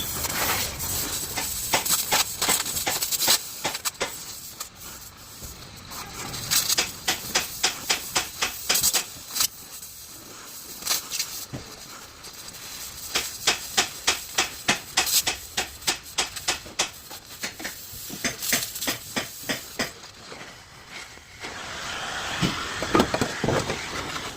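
Hammer blows on metal in runs of quick strikes, a few a second, with short pauses between the runs, typical of hammering out rusty car body panels.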